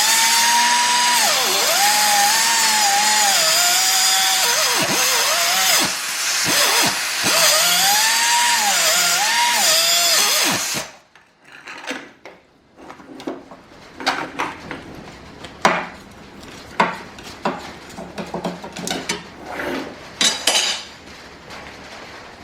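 SP Air SP-7231 flex-head pneumatic cut-off tool running and cutting, a loud high whine with hissing air that drops in pitch each time the wheel bites and recovers between cuts. It stops abruptly about eleven seconds in, followed by scattered clicks and knocks of the tool and work being handled.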